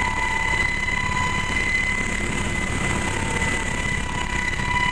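Helicopter turbine engines and rotor heard from inside the cabin in flight: a steady drone with a constant high whine over it.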